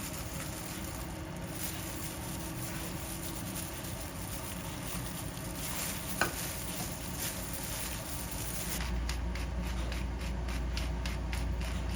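Food sizzling steadily as it cooks, with a single sharp click about six seconds in and a heavier low rumble over the last few seconds.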